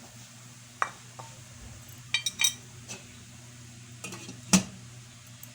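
Kitchen utensils clinking and knocking against a cooking pot, in scattered sharp strikes: a quick cluster about two seconds in and the loudest one near the end.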